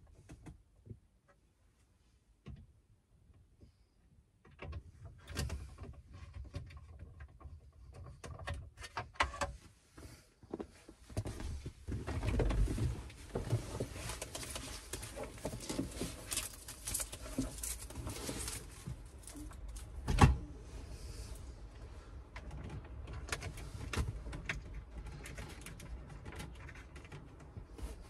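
Hands working on a VW Transporter T5's plastic steering column trim: irregular clicks, taps and rustling of plastic parts being fitted, starting after a few seconds of near silence, with one sharp knock about twenty seconds in.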